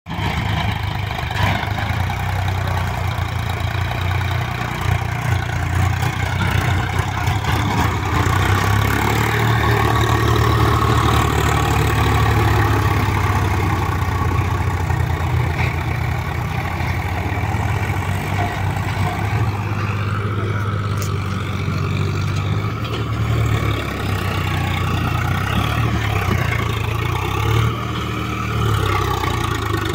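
Swaraj 735 FE tractor's three-cylinder diesel engine running steadily under load as it hauls a trailer through soft riverbed sand.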